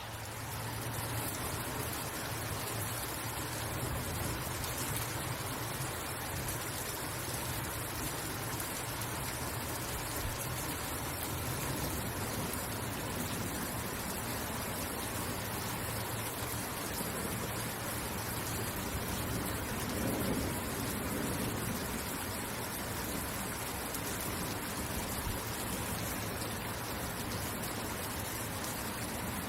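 Steady rain falling, an even hiss, with a brief low swell about two-thirds of the way through.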